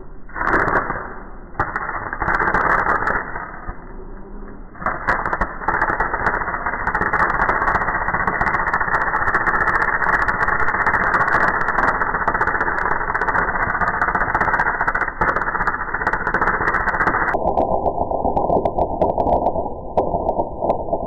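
Electric arc welding on a mower driveshaft, its crackle played back slowed down so that it sounds low and dull. It stops and starts a few times in the first five seconds, then runs steadily. Near the end it drops lower still as the slowdown doubles.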